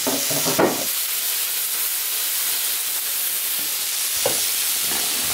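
Steak sizzling steadily on the hot plate of a Severin KG 2397 electric teppanyaki flat griddle. There is a sharp click about half a second in and a couple of faint knocks near the end.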